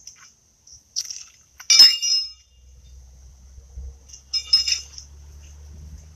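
Steel pitching horseshoes clanking as they are picked up from the pit. There are three ringing clinks: one about a second in, a louder one just under two seconds in, and another about four and a half seconds in.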